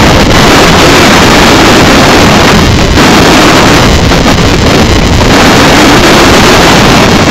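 Loud, steady rush of wind blowing across the onboard microphone of a sailboat under sail.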